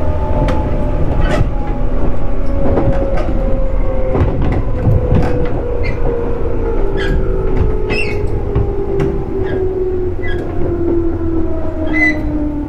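JR 211 series electric train under way: the traction motor and gear whine falls slowly in pitch as the train slows, over a steady running rumble. Scattered clicks and knocks come from the wheels on the track.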